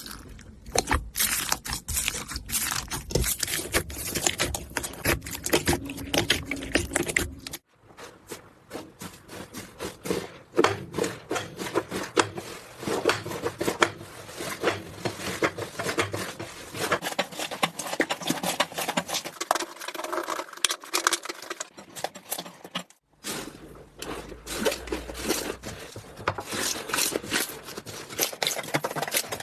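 Slime being squeezed, poked and stretched by hand: a dense run of sticky clicks, pops and crackles that breaks off abruptly twice, at about 8 seconds and about 23 seconds in.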